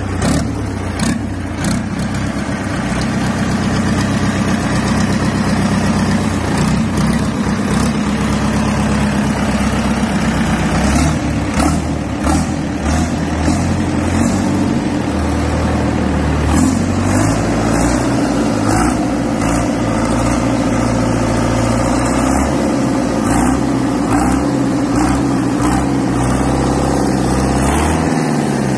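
Deutz F4L913 air-cooled four-cylinder diesel engine running on a test stand just after starting, with its engine speed shifting a few times and occasional sharp clicks over the steady running.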